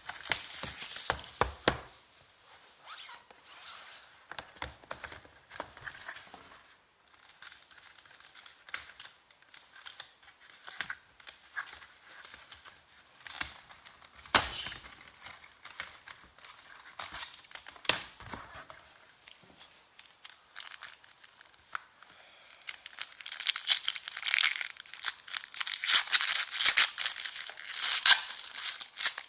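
Trading-card packaging being opened by hand: plastic and foil wrappers crinkling and tearing in scattered bursts, which grow busier and louder over the last several seconds.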